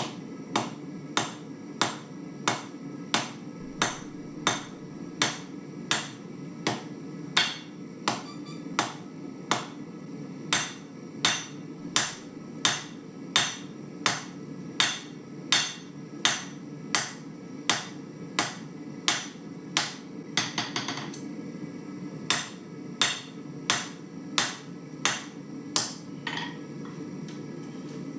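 Hand hammer striking a steel blank from an old farrier's rasp on an anvil: evenly paced blows, about three every two seconds, with a short pause about three quarters of the way through and the strikes stopping near the end, over a steady low rush.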